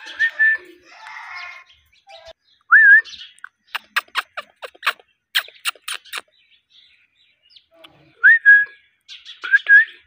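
Rose-ringed (Indian ringneck) parakeet giving short whistled notes, each rising and then holding, a few times, with a run of sharp clicks in the middle.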